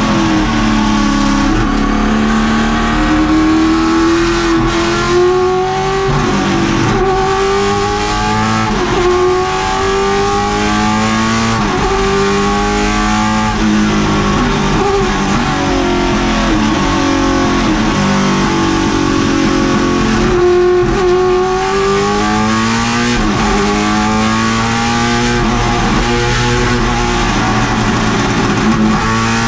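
Holden Commodore race car's V8 engine heard from inside the cabin, revving hard on track. The pitch climbs through each gear and drops sharply at each shift, over and over.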